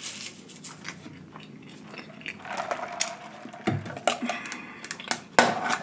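Plastic drinking straw pushed down through the lid of a fast-food cup, squeaking against the plastic for about a second, amid small clicks and crackles of the cup and lid. There are two sharper knocks, one past the middle and one near the end.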